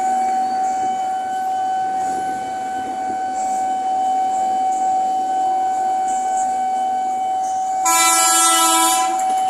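Train noise on the railway under a single steady high tone, with one train horn blast of about a second near the end.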